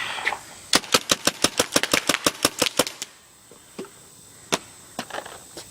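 Gryphon CO2 paintball gun fired rapid-fire, about eight shots a second for two seconds, followed by one lone shot a couple of seconds later.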